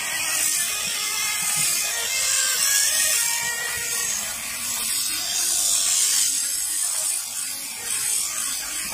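Electric sheep shears running steadily, the handpiece's cutter clipping through a sheep's fleece.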